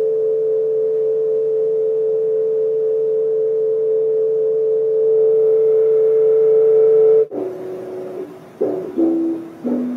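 Electric keyboard holding one steady note for about seven seconds. The note stops abruptly and a few shorter notes follow, each lower than the last.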